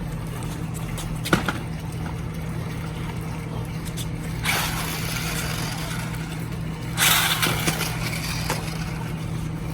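Megalodon Storm remote-control monster truck running, a steady low hum with two louder bursts of hiss about halfway through and again a couple of seconds later.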